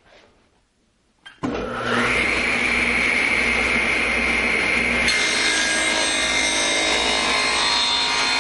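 Ridgid table saw starting up about a second and a half in, its whine rising to a steady pitch within half a second and then running steadily. About halfway through, the blade starts cutting into a wooden board, adding a higher ringing, rasping sound.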